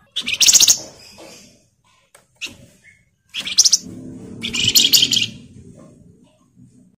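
A wergan Jawa (flamboyan) songbird giving three short bouts of rapid, high-pitched chattering rattle notes, with pauses between them, rather than its clear whistles.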